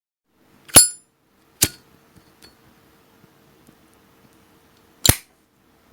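Brass Zippo lighter's lid flicked open with a sharp metallic clink that rings briefly, then a second click a moment later. The lid snaps shut about five seconds in.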